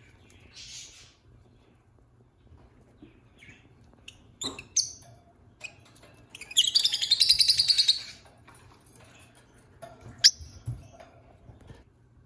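Peach-faced lovebird chirping: scattered short chirps, then a fast, loud run of high chattering chirps lasting about a second and a half midway, and one sharp chirp near the end.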